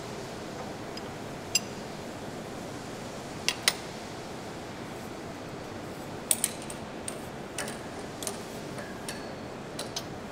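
Sharp metallic clinks and taps from handling a strap and its metal fittings on a gun barrel: one about a second and a half in, a quick pair a couple of seconds later, then a scatter of them in the second half. Under them runs the steady hum of a large workshop hall.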